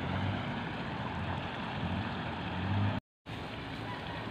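Steady outdoor noise, an even hiss with uneven low rumbling like wind on the microphone, cut off completely for a moment about three seconds in.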